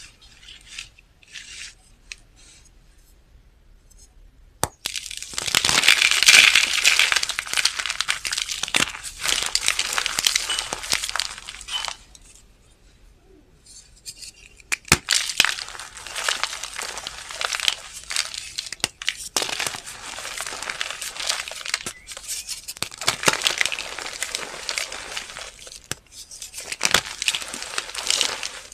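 Blue reformed chalk being crushed and crumbled, a dry crunching full of small crackles. It starts with faint scraping, turns to dense crunching about five seconds in, pauses briefly around twelve seconds, then crunches on in long stretches.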